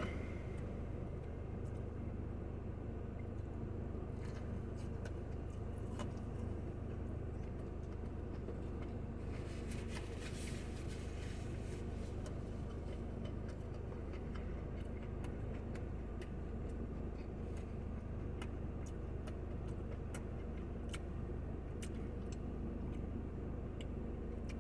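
Quiet eating sounds, faint chewing and small scattered clicks, over a steady low hum.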